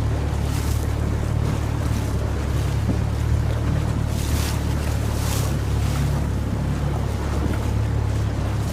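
A boat's motor running at a steady low hum, with wind and water noise over it and a few short gusts on the microphone.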